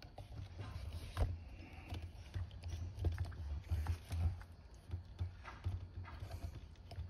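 Irregular light clicks and taps, with dull low knocks, from hands working with small parts at the scooter's front end.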